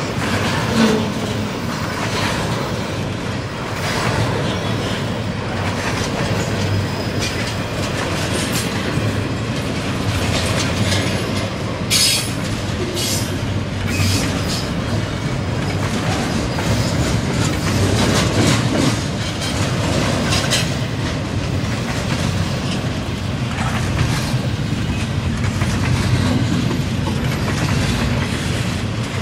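Double-stack intermodal container train rolling past: a steady rumble of steel wheels on the rails with repeated clickety-clack over the rail joints, and one short, louder metallic screech or clank about twelve seconds in.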